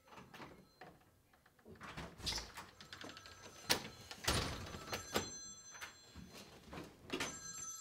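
Door latch clicking and a wooden interior door being opened and shut with sharp knocks, with a few footsteps, then a mobile phone's ringtone sounding in short spells of steady high tones near the end.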